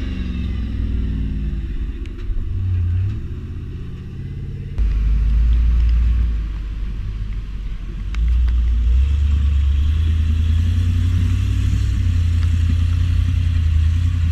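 Off-road vehicle's engine working under load as it crawls up a rock ledge. The throttle is pushed on hard, with sudden jumps in the rumble about five seconds in and again about eight seconds in.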